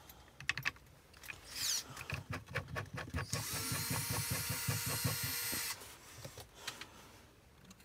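A series of clicks and knocks from metal parts being handled, then a handheld power tool's electric motor runs steadily with a whine for about two and a half seconds before stopping.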